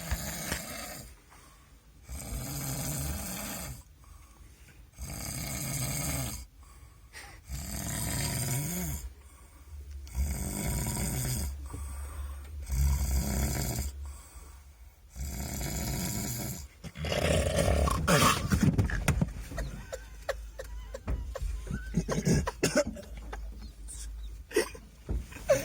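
A sleeping person snoring in slow, regular breaths, one snore every two to three seconds. About two-thirds of the way in, the snoring stops and gives way to scattered clicks and knocks.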